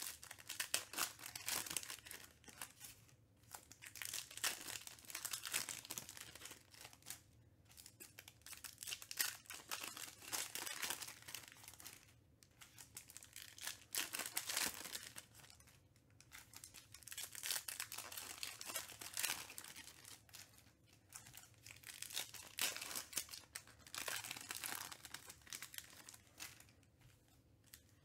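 Shiny foil wrappers of Panini Select trading-card packs being torn open and crinkled by hand, in repeated bursts of crackling with brief quiet gaps between.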